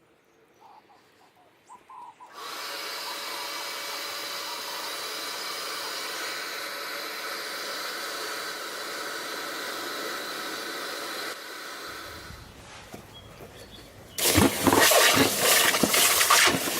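An electric forge blower running steadily: it switches on about two seconds in and cuts off sharply some nine seconds later. Near the end comes a loud, irregular sizzling and bubbling as the hot steel hammer head is quenched for hardening.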